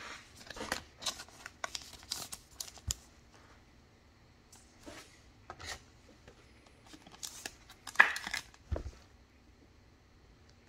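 Rustling and clicking of plastic as a trading card is handled and slid into a clear hard plastic card holder. The sounds come in short scattered bursts. The loudest comes about eight seconds in and is followed by a soft low thump.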